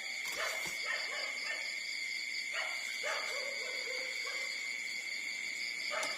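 Newborn puppies nursing give short squeaks and whimpers: a few in the first second, more about halfway through and one near the end, over a steady high-pitched drone.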